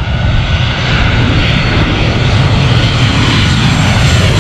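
Jet engines of a Southwest Boeing 737 coming in low on final approach and passing nearly overhead: a steady rushing noise over a deep rumble, growing louder toward the end.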